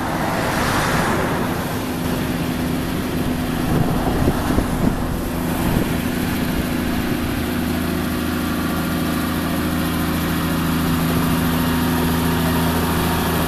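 Diesel engine of the restored 1914 Kubiki Railway railcar Hoji 3 running steadily as the wooden car moves slowly along the track. A brief rushing noise comes about a second in, and a few knocks follow around four to six seconds in.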